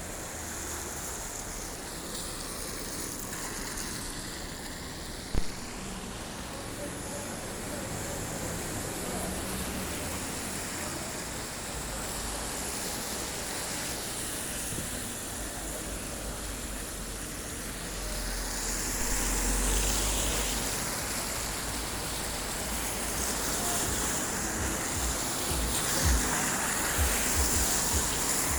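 Steady outdoor street noise with passing road traffic, a sharp click about five seconds in, and a swell of low rumble past the middle. Low thumps near the end.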